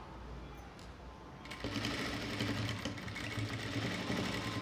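Industrial sewing machine starting about a second and a half in and running steadily for about three seconds, stitching an invisible zip into a silk skirt's side seam.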